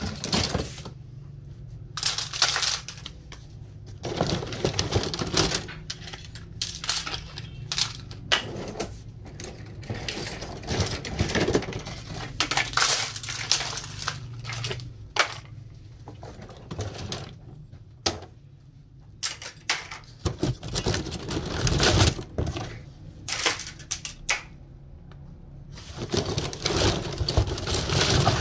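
A heap of plastic-handled metal scissors clattering and clinking against each other as they are rummaged through and dropped, in irregular bursts with short pauses.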